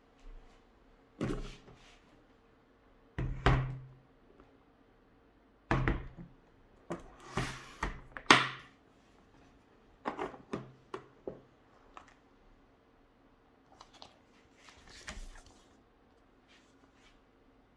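Aluminium poker chip case handled on a table: several heavy thunks in the first six seconds as it is laid flat, then sharp metallic clicks of its latches snapping open around the eighth second. Softer knocks follow as the lid is lifted, with a short rustle of a paper leaflet near the end.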